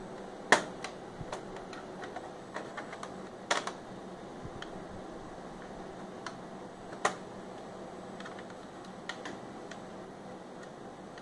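Scattered sharp clicks and taps of hard plastic and metal laptop parts being handled while a laptop is taken apart; the loudest come about half a second in, at about three and a half seconds and at about seven seconds, with lighter ticks in between.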